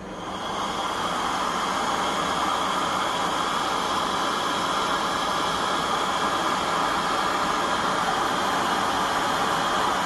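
A 2000 W hot-air heat gun running, its fan blowing a steady hiss as it shrinks heat-shrink tubing onto a cable plug. The sound builds up over the first second, then holds level.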